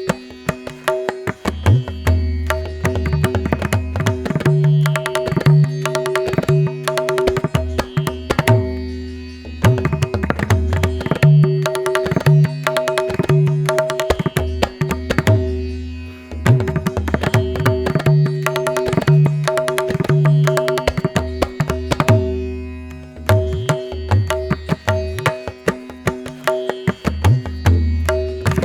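Instrumental music: rapid hand-drum strokes over a steady held drone, with deep bass notes that come and go in phrases.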